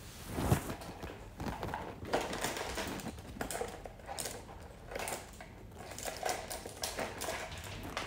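Light handling noise: scattered soft clicks and taps, irregular, with one slightly louder knock about half a second in.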